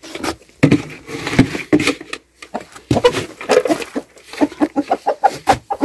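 Hens clucking in short, separate calls, with a quick run of clucks near the end, among scattered knocks and shuffling.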